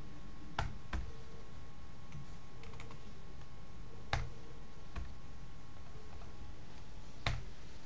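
A few scattered keystrokes on a computer keyboard: about five sharp clicks spaced irregularly over several seconds, over a steady background hiss.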